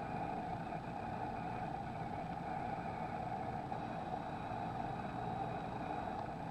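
Steady background noise with no distinct clicks, beeps or other events.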